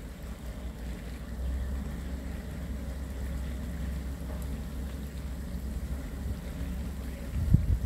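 Steady low drone of the plough dredger Fastnet Sound's diesel engine as it tows its plough through the channel. Wind buffets the microphone in gusts near the end.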